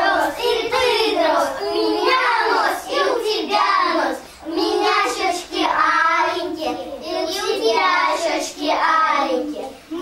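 A group of young children singing a song together.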